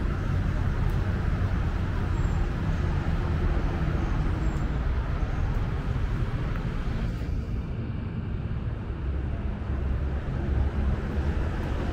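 Steady urban traffic noise: a continuous low rumble with a hiss above it and no single event standing out. The higher hiss thins about seven seconds in.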